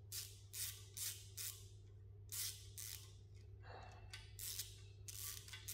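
Short raspy scrapes, roughly two a second and unevenly spaced, as a steel grub screw is turned in a freshly tapped thread in the oil gallery hole of a Holden V8 engine block, over a steady low hum.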